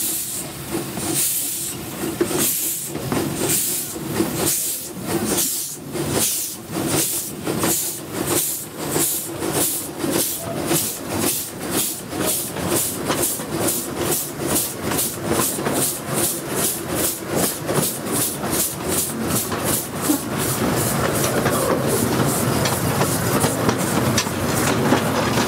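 Small 15-inch gauge steam locomotive chuffing as it accelerates, with steam hissing from its open cylinder drain cocks. The exhaust beats quicken steadily from about one a second to several a second, and in the last few seconds merge into a continuous rush along with the wheels on the rails.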